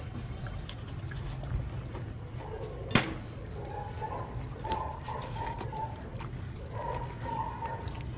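Knife working and pulling the thick skin off a porcupine puffer fish on a plastic cutting board: soft wet handling sounds and scattered clicks, with one sharp knock about three seconds in. Short high squeaks come and go in the second half, over a steady low hum.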